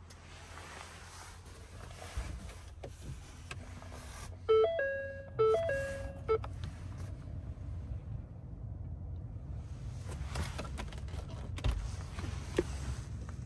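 Ford C-Max dashboard warning chime sounding twice in quick succession about four and a half seconds in, each a short stepped two-note tone, with the ignition on and the engine off while the display asks for the ignition to be switched off. A low steady hum and the rustle of handling run underneath.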